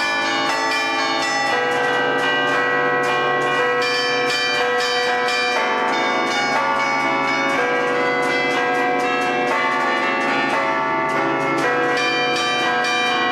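A set of twelve tower bells played by hand from a baton keyboard in the festive allegrezza style of Lombard bell-ringing. They ring a quick melodic tune in the manner of band music, the strikes coming several a second over the ringing of the bells struck before.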